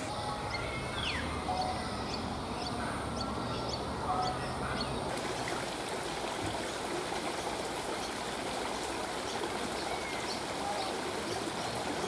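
Outdoor ambience of small birds chirping over a thin, steady high tone, then after a cut about five seconds in, water trickling steadily with occasional bird chirps.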